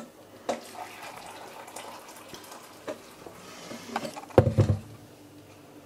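Water running into a glass jug for about three seconds, then a heavy bump about four and a half seconds in.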